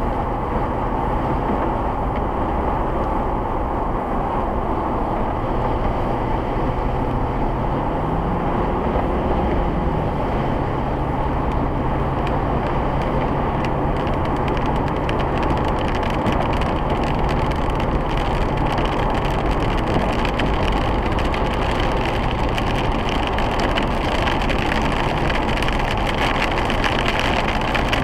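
Inside the cabin of a 2008 Ford Crown Victoria Police Interceptor driving on a wet road: steady tyre hiss and road noise over the 4.6-litre V8's drone. The engine note rises briefly and drops back about nine seconds in.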